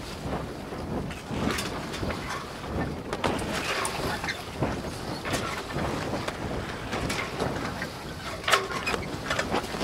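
Wind buffeting the microphone on a small boat over open water, an uneven rushing noise with scattered brief gusts and knocks.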